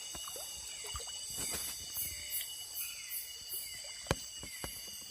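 Night insects chirring in a steady, high chorus, with a faster run of high chirps in the middle. Scattered knocks and clicks sound over it, the sharpest about four seconds in, from handling a catfish taken off a set line.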